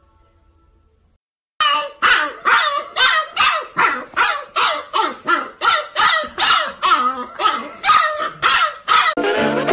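Husky puppy barking over and over, short yapping barks about two a second, starting after a second and a half of near silence. Music comes in near the end.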